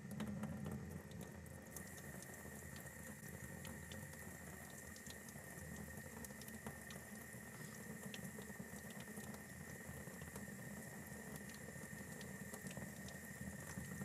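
Faucet turned on at the start and running steadily into a sink, cold well water starting to flow through a tankless electric water heater that has just been switched on. A faint steady high tone runs under the water sound, with small scattered clicks.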